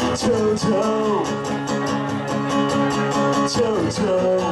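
Acoustic guitar strummed in a steady rhythm during a live song, with a voice sliding down on held notes twice, once early and once near the end.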